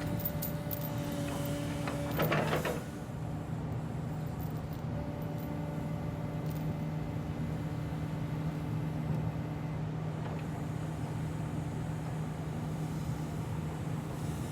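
Engine running steadily at idle, with a brief clatter about two seconds in.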